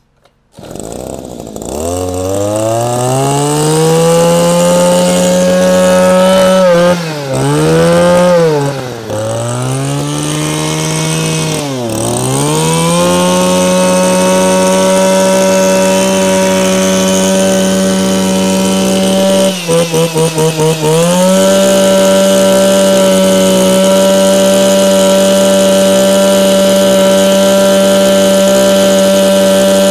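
Echo 26 cc two-stroke brush cutter engine catching about a second in and revving up to high speed. The throttle is let off and opened again three times in quick succession, then the engine briefly sags and stutters before running steadily at full throttle.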